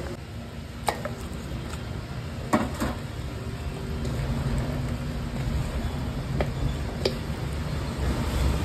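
Mutton and fried onions being mixed by hand in a steel bowl: a few sharp clicks and knocks, about a second in, twice near three seconds and again near seven seconds, over a low steady rumble.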